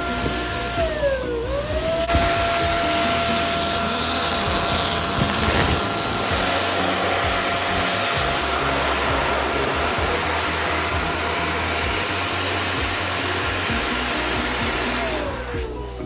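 Electric balloon air pump running steadily with a whine while it inflates a foil balloon. Its pitch dips briefly about a second in, then recovers, and falls as the motor winds down near the end.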